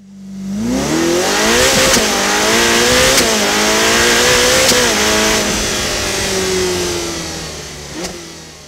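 A car engine accelerating hard through the gears: its pitch climbs and drops back at three upshifts, then it runs on and fades away, with a sharp hit near the end.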